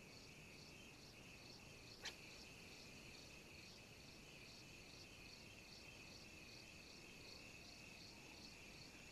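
Faint insect chorus: a steady high trill with a pulsing chirp about three times a second. One short sharp click sounds about two seconds in.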